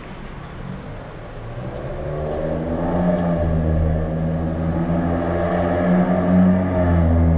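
Car engine running at low speed, growing louder about two seconds in, its pitch rising and falling slightly.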